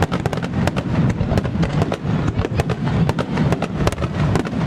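Fireworks going off in rapid succession: a dense run of sharp crackling reports over a continuous low rumble of booming shells.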